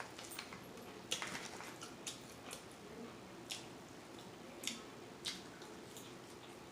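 A person chewing food with open-mouth smacking: scattered, irregular, fairly quiet smacking clicks.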